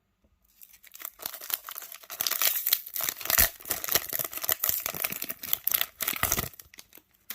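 Wrapper of a Select Footy Stars jumbo trading card pack being torn open and crinkled: a dense run of crackling and tearing from about half a second in until near the end.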